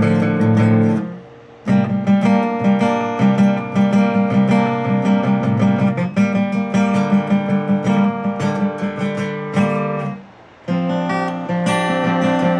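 Acoustic guitar being strummed and picked, with two short pauses, about a second in and about ten seconds in.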